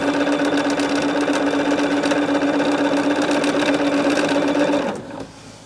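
Bernina electric sewing machine running at a steady speed, stitching a seam through quilt pieces: a steady motor hum with rapid stitch ticks. It stops suddenly about five seconds in.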